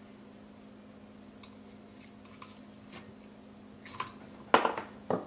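Hand tool prying the old crankshaft oil seal out of a Briggs & Stratton Vanguard V-twin engine: a few light metal ticks, then a quick cluster of louder clicks and scrapes about four seconds in as the seal comes free.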